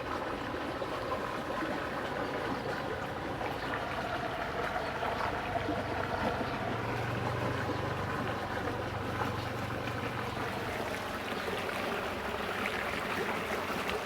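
Steady rushing of flowing water in a drainage ditch, with a low hum that rises for a few seconds about halfway through.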